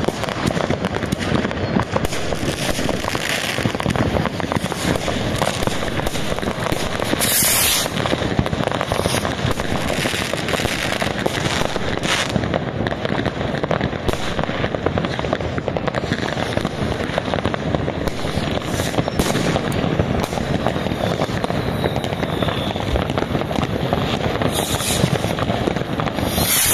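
Fireworks going off without pause, near and far: a dense barrage of rocket bursts and firecrackers crackling and banging, with louder sharp bangs about seven and twelve seconds in and twice near the end.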